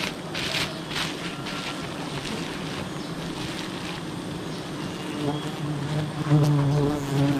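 Wild honeybees buzzing around the microphone: a steady hum, with a louder, wavering buzz from bees flying close over the last couple of seconds.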